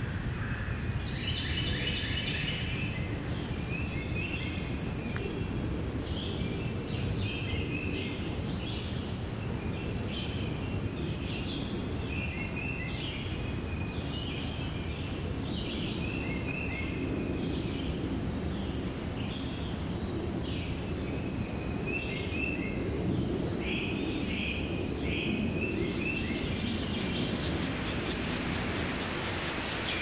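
Woodland ambience: small birds calling and singing in short repeated phrases over a steady high-pitched insect drone and a low background rumble.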